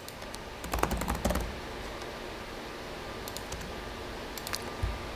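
Laptop keyboard typing in short bursts: a quick run of keystrokes about a second in, then a few more scattered taps near the end.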